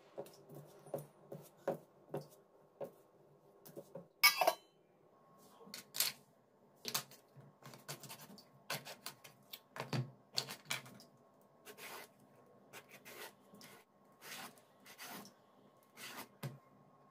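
Hand mixing flour in a steel bowl, with soft rubbing and irregular clicks and one louder knock about four seconds in; then a kitchen knife tapping and scraping on a wooden chopping board while trimming ridge gourd, in irregular sharp clicks. A faint steady hum lies underneath.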